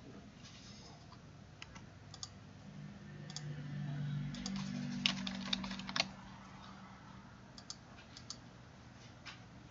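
Scattered computer keyboard clicks, a few keys at a time with gaps between, the sharpest about five and six seconds in, over a faint low hum that swells for a few seconds in the middle.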